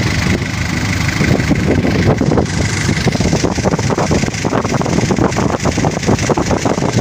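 A wooden fishing launch's engine running steadily under way.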